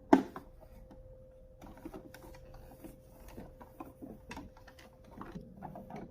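Irregular rubbing, scraping and small taps from wiping the dirty plastic casing of a Singer Quantum Stylist 9960 sewing machine, with a sharp knock at the start and a faint steady hum underneath.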